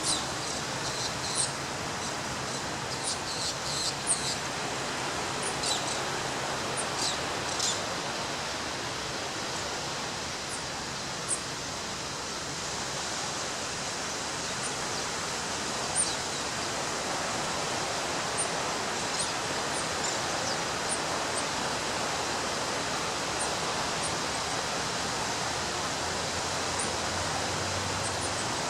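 Ocean surf breaking and washing on a beach, a steady rush of water. Short high chirps come and go over it, most of them in the first several seconds.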